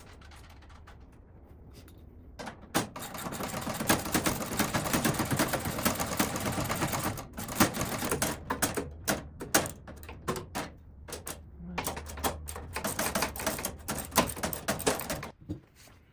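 A hand socket ratchet clicking rapidly as bolts are run in, starting a few seconds in and going on in shorter bursts with pauses between.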